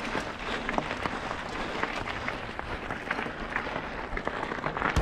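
Mountain bike tyres rolling over loose gravel, a steady crunching hiss peppered with many small irregular clicks and rattles from stones and the bike.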